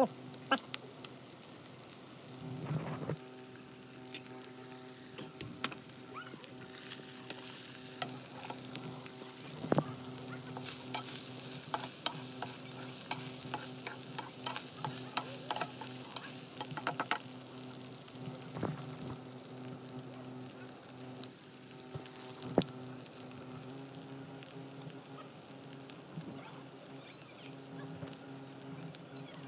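Chicken pieces sizzling as they fry in a black wok, louder in the middle, with a metal spatula scraping and clicking against the pan as they are stirred.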